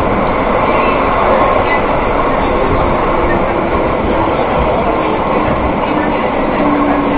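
Seville Metro train running, heard from inside the passenger car: a steady loud rumble and hiss of the wheels and running gear. A faint whine steps slowly down in pitch and grows a little stronger near the end.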